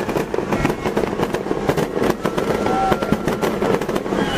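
Fireworks going off in a dense, rapid crackle of many sharp little bangs.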